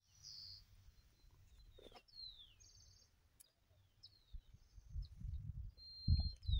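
Wild birds calling: short high chirps, down-slurred whistles, a brief trill, and a held whistle near the end. Beneath them is a low rumbling noise that grows stronger over the last seconds and becomes the loudest sound.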